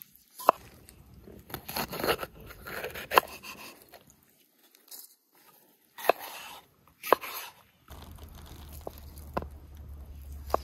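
Kitchen knife slicing tomato and red bell pepper on a wooden cutting board: crunchy cuts with sharp knocks each time the blade meets the board, then cutting into a block of feta cheese near the end.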